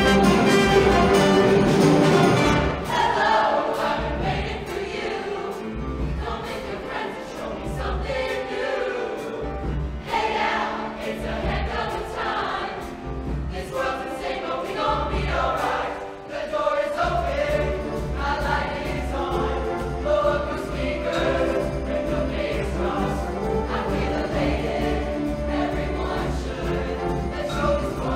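Show choir singing in full voice over band accompaniment, with a steady pulsing bass beat. The first two or three seconds are loudest before the song drops back a little.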